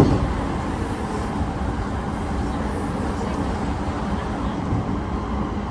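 Running noise of a JR East E231 series electric commuter train heard inside the car: a steady rumble of wheels on the rails, with one short knock just as it begins.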